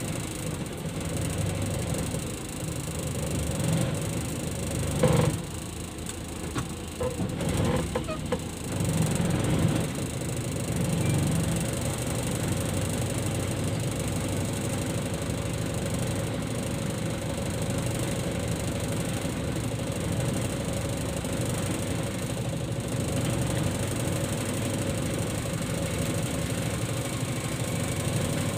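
Engine and road noise inside a small van's cabin while it drives, a steady hum. A few louder knocks in the first ten seconds, the loudest about five seconds in.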